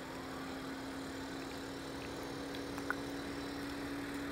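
A steady mechanical hum at one unchanging pitch, with a single short click about three seconds in.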